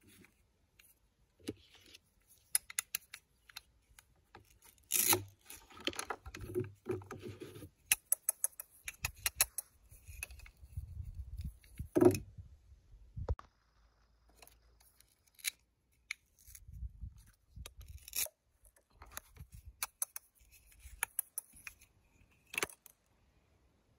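Hard plastic toy food and a plastic toy cutting board being handled: scattered clicks, taps and scrapes, with a few sharper knocks, the loudest about halfway through.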